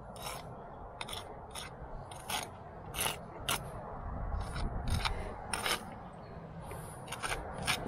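Steel brick jointer scraping along fresh mortar joints in repeated short strokes, about one or two a second, tucking in and smoothing the pointing.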